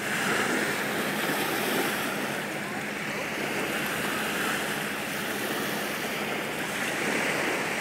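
Small lake waves washing onto a sandy beach, the wash rising and easing, with some wind on the microphone.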